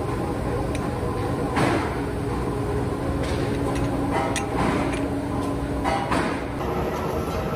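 Steel plates cut from old leaf springs clacking and clinking against each other as they are picked up off a heap and stacked by hand, about half a dozen irregular sharp clacks, over a steady hum of workshop machinery.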